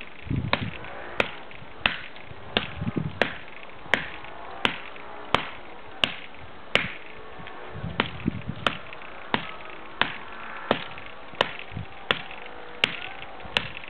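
Steady chopping of a blade into a piece of wood: sharp chops about one and a half times a second, some with a dull thud.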